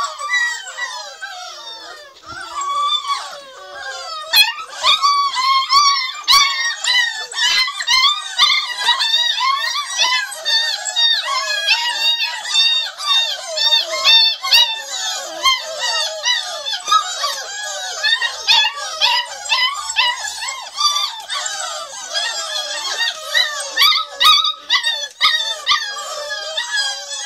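A litter of beagle puppies whining and yelping together: many overlapping high-pitched cries, dense and nonstop.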